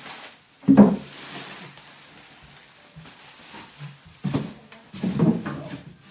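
Plastic shopping bags being set down on a carpeted floor: a heavy thump with crinkling plastic about a second in, then more rustling and bumping of bags twice near the end.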